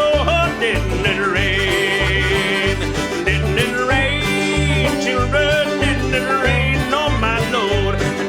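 Acoustic string band playing an instrumental passage: plucked strings over a steady, regular bass beat, with a few wavering held notes above.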